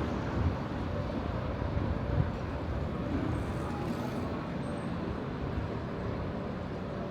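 Road traffic running past on a city street, a steady low rumble of cars and buses.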